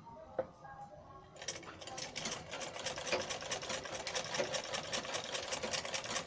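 Black household sewing machine stitching through cloth, starting about a second and a half in with a rapid, even clatter of the needle that keeps going. Before it starts there are only faint handling sounds as the cloth is smoothed into place.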